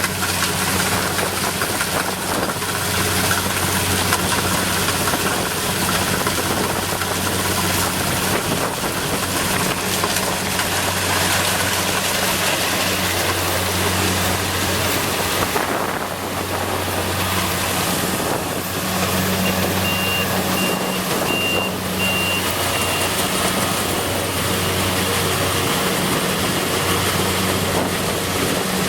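Kubota DC60 combine harvester's diesel engine running steadily under a broad clatter of machinery. About two-thirds of the way through, a high electronic beeper sounds in short pulses for about three seconds.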